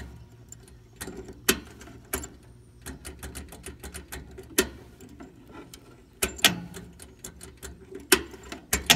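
Cub Cadet 1450's starting circuit clicking without the engine turning over: rapid, irregular clicks with a few louder clacks about 1.5, 4.5, 6.5 and 8 seconds in, over a low steady hum. The battery is too weak to crank the engine.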